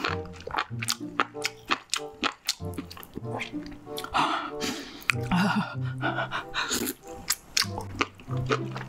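Background music with a repeating bass line, over close-miked wet chewing and crunching clicks from a mouthful of spicy sauced enoki mushrooms. Two breathy hissing bursts come about four and six seconds in.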